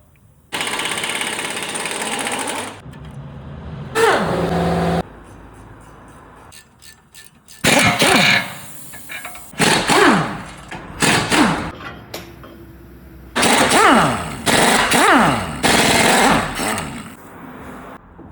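Power tool run in a series of short bursts on a car shock absorber, most bursts falling in pitch as they wind down, with hammering tool noise of the impact-wrench kind.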